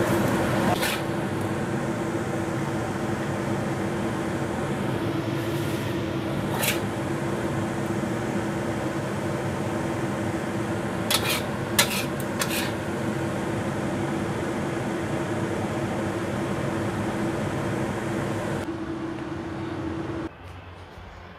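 Steady hum of a kitchen fan running, with a few scrapes and taps of a metal spatula on a wok as stir-fried food is scooped out onto a plate. The hum cuts off suddenly near the end.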